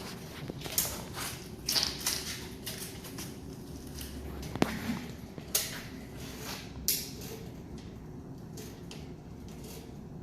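Irregular clicks, knocks and rustling of plastic stand-fan parts being handled and fitted together by hand, with the sharpest knocks about a second in, near the middle and about two thirds of the way through.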